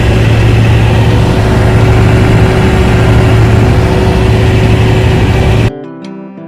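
Diesel generator engine running loudly and steadily. It cuts off abruptly about five and a half seconds in and gives way to plucked guitar music.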